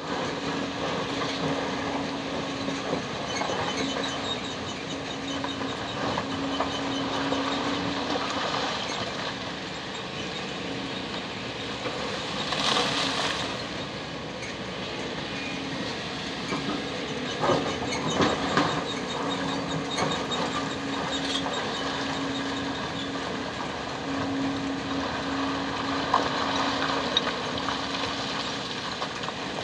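Kobelco 220-class hydraulic excavator running under load as it digs broken rock, a steady engine drone with a pitched hum that comes and goes. Rock clatters and scrapes against the bucket, loudest about 13 seconds in and again around 18 seconds.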